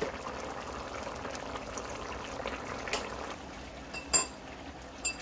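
Large pot of hassa fish curry bubbling steadily on the stove for the first few seconds, then quieter. A couple of sharp clinks near the end.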